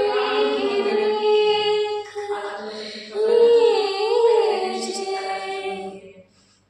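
A woman singing a Hindi song unaccompanied, holding long notes with a wavering turn about three seconds in, then trailing off near the end.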